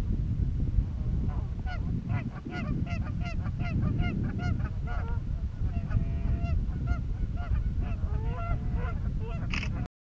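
Geese honking over the lake, a quick run of calls a few a second, then scattered calls, over a steady rumble of wind on the microphone. The sound cuts off suddenly just before the end.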